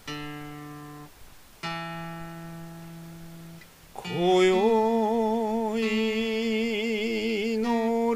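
Dodoitsu song opening: two single plucked notes on a stringed instrument, each left to ring and fade. About four seconds in, a voice enters, sliding up into a long drawn-out sung note with wide vibrato.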